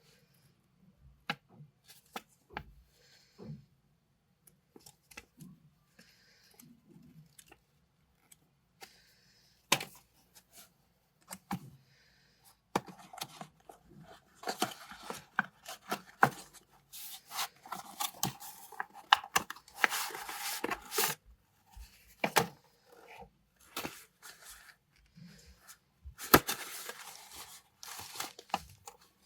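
Unboxing handling noise: paper and packaging being handled, with scattered clicks and taps at first, then long stretches of crinkling and tearing of packaging from about halfway through.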